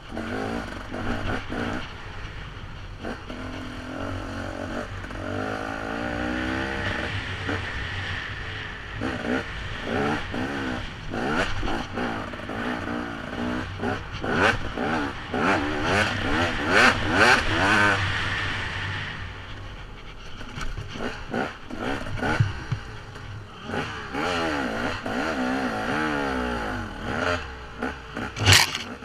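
Dirt bike engine being ridden on a rocky trail, revving up and down again and again with the throttle, loudest and highest in the middle. Scattered knocks and clatter run through it.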